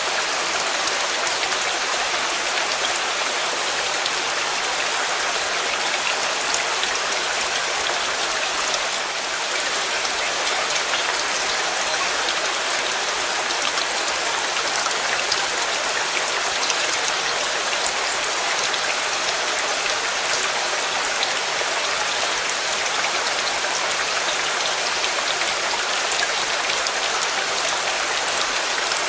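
Steady rain falling, with many small drop taps on a surface over an even hiss.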